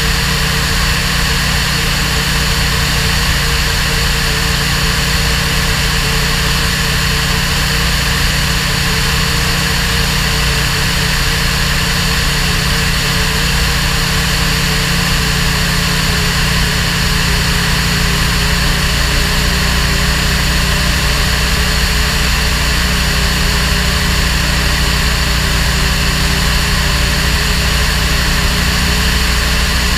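Light single-engine propeller aircraft in cruise flight: the engine and propeller give a steady, unchanging drone with no change in power.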